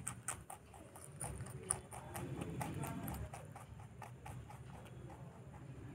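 Rabbit chewing turtle vine stems and leaves: a quick run of crisp crunching clicks, about four or five a second, thinning out after about three seconds.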